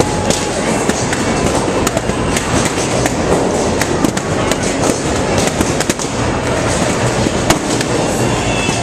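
A large crowd cheering and applauding in a dense, continuous din, with many sharp claps and bangs scattered through it.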